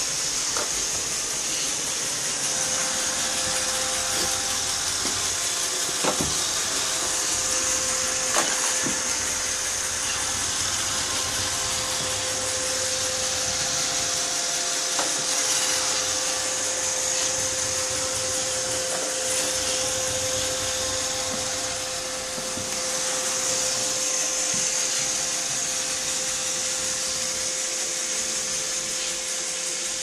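Roomba robot vacuum running on a hardwood floor: a steady whirr of its suction fan and brushes with a constant hum under it. A couple of short light knocks come about six and eight seconds in.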